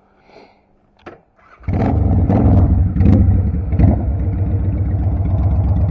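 2007 Honda Shadow VLX 600's V-twin engine starting: a faint click about a second in, then the engine comes in suddenly about a second and a half in and runs steadily.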